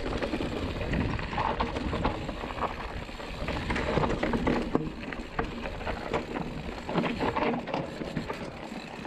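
Mountain bike descending a rough trail of loose gravel and leaves: tyres on loose stones and a constant clatter of chain, frame and suspension over the bumps.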